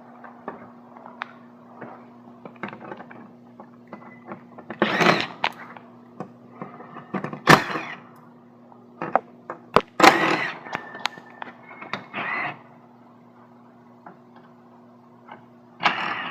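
Hands working at a car's gear selector trim: scattered plastic clicks and knocks, with several short, harsh scraping bursts, over a steady low hum.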